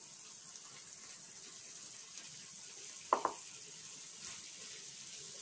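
Faint steady sizzle of an onion-tomato curry base cooking in a kadai, with one brief sharp sound about three seconds in.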